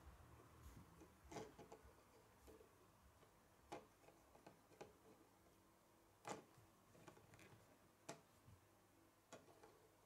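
Faint, scattered clicks and taps of a small plastic Lego truck being handled and set down on a wooden tabletop, about half a dozen separate clicks, the sharpest about six seconds in.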